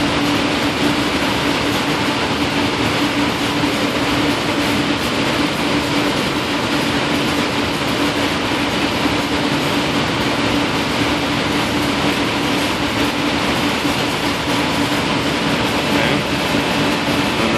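Steady rushing background noise with a constant low hum running through it.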